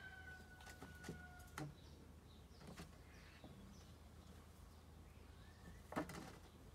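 A rooster's crow ends on a long held note about a second and a half in. Faint bird chirps follow, with a few light clicks and a sharper knock about six seconds in.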